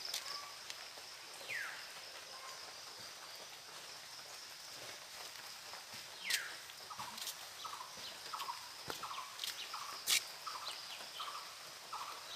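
Faint outdoor ambience: a steady high-pitched insect drone, two downward-sliding bird whistles, then a run of short repeated bird calls about twice a second in the second half, with a few sharp snaps.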